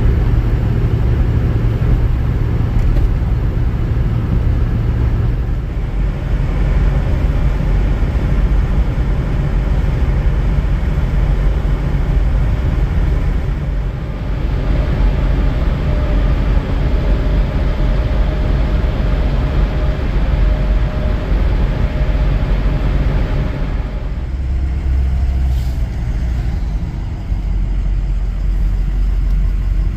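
Steady road and engine noise heard from inside the cab of a Ford Powerstroke diesel dually pickup at driving speed, a low rumble with tyre noise over it. The sound shifts twice as the shots change, about halfway through and again near the end.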